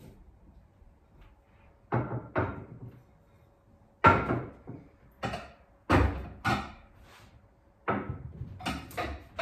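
Plates clinking and knocking as they are lifted off a stack and set down on a table, a series of separate sharp knocks that come closer together near the end.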